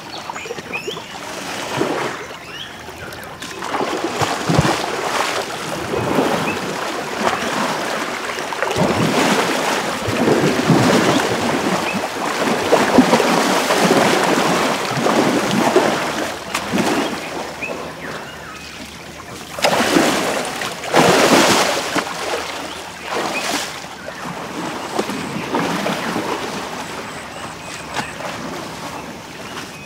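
Asian elephants bathing in a river: water sloshing and splashing in irregular surges, with the loudest splashes about two-thirds of the way through and calmer water near the end.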